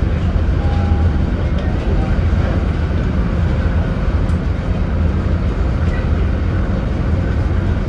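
Leyland Atlantean AN68/1R double-deck bus under way, its Leyland O.680 six-cylinder diesel engine running steadily with a deep, low hum.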